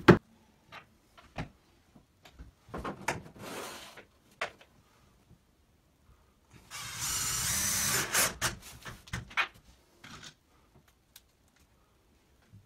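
Cordless drill-driver driving a screw through a metal angle bracket into a wooden wall batten, running steadily for about a second and a half midway through. Scattered knocks and clicks of the cabinet and screws being handled come before and after.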